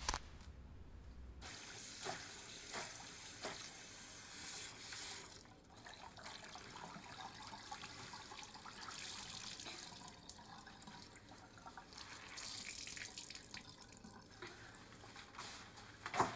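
Water running from a tap into a bathroom sink, starting about a second and a half in and going unevenly with splashes. A sharp tap is heard right at the start.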